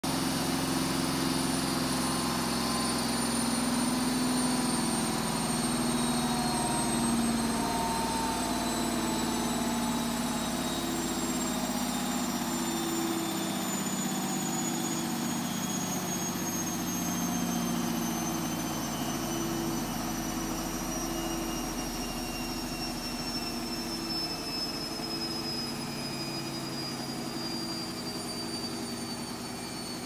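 Hotpoint WMFUG742 washing machine's drum spinning down after a spin, the smooth-sounding motor's whine falling slowly in pitch as the level eases off. Under it is a low hum that swells and fades from the slightly unbalanced load.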